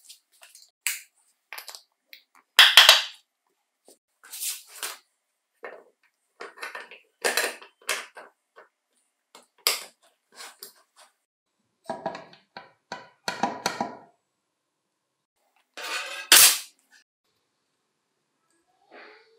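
Metal drill parts being handled and set against each other: a series of separate clicks, knocks and light rattles, from a small electric drill motor, its bearing and metal bracket and the aluminium gear housing. The loudest knocks come about three seconds in and near the sixteenth second.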